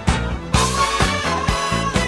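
Upbeat background music with a steady beat.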